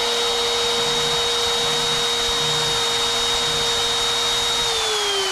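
Router spindle motor on a NextWave Piranha CNC router running at full speed with a steady high whine. It is switched off near the end, and the pitch falls as it spins down.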